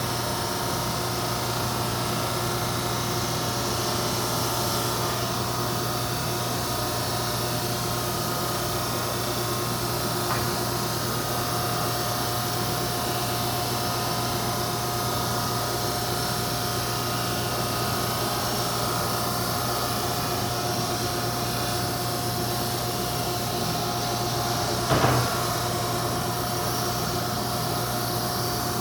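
Auto-feed wide belt sander running steadily with its dust-collection vacuum, sanding cedar boards down to thickness: a continuous hum over a rushing noise. A short knock a few seconds before the end.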